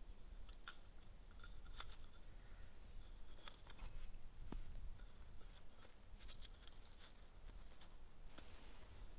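Faint, scattered clicks and taps of peeled wooden sticks and a thin saw blade being handled and fitted together into a bucksaw frame.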